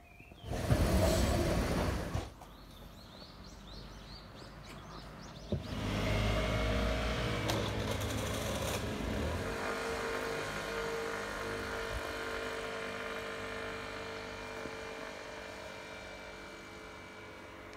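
A vehicle goes by: a low rumble with a steady hum starts suddenly about five and a half seconds in and slowly fades away. A brief loud rush comes about a second in.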